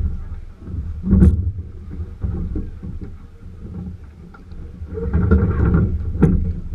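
Bumps and knocks from a rowing shell at the dock as the sculler handles his oars and settles in, picked up by a camera mounted on the boat, over a steady low rumble. Two sharp knocks stand out, about a second in and again near the end.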